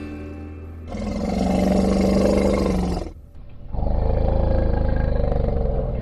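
A large animal roaring: two long, loud calls, the second starting just under a second after the first ends.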